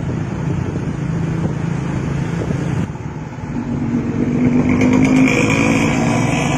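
Bus diesel engine running through a modified 'ngorok' (snoring) exhaust, a continuous low growl. About three seconds in it eases off, then the engine note rises slightly in pitch and grows louder.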